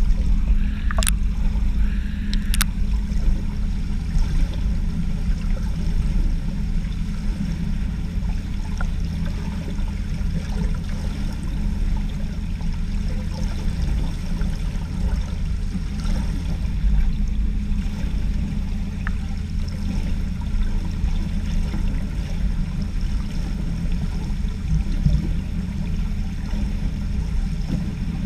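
Steady, muffled low rumble of swimming-pool water picked up by a submerged camera, with two sharp clicks about a second and two and a half seconds in.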